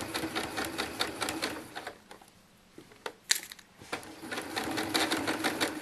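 Sewing machine stitching a seam at a rapid even rate, stopping for about two seconds midway, with a single click in the pause, then stitching again.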